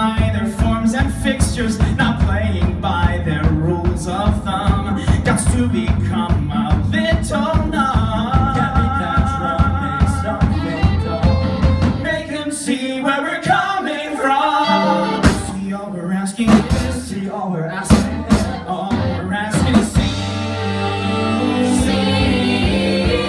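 Live song with male voices singing over a band with drum kit. About halfway through the bass and drums drop out, leaving the voices with a few sharp accented hits, and near the end the band comes back in full under the whole vocal ensemble.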